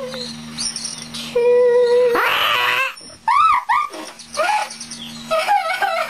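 A person's voice making shrill, bird-like squawks: a held note, a harsh screech about two seconds in, then a run of short yelps that rise and fall in pitch. A steady low electrical hum runs underneath.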